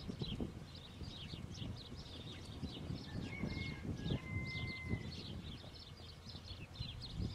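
Horses' hooves galloping on soft dirt, dull irregular thuds, under a continuous chatter of many small birds chirping. Midway, a thin steady whistle is held for about a second and a half.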